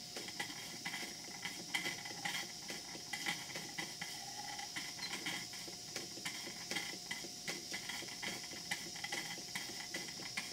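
Model steam plant running on steam: a beam engine and a hypocycloidal engine clicking rapidly and irregularly from their moving parts over a constant hiss of steam.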